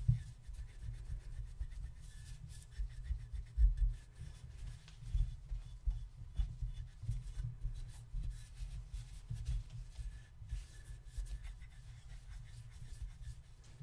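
A cotton towel rubbing and polishing tarnish off the metal base of a silver-plated creamer, in irregular dull scrubbing strokes, the strongest about three and a half seconds in.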